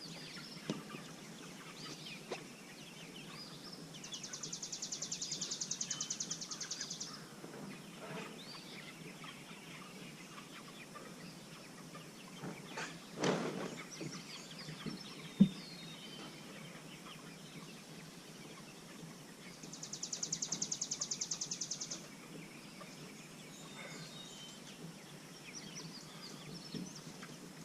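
A flock of meat birds calling on pasture. Two rapid, high-pitched trills of about three seconds each, one about four seconds in and one about twenty seconds in, and a single sharp knock about fifteen seconds in.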